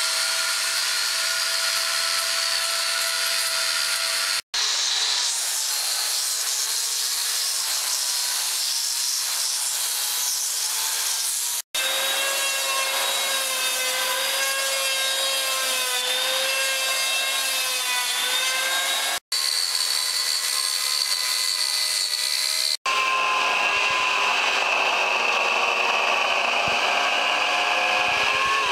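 Power tools cutting wood, each running with a steady whine: an angle grinder with a carving attachment, then an electric hand planer whose pitch dips and rises as it bites, then a corded electric chainsaw. The sound drops out briefly at each switch between tools.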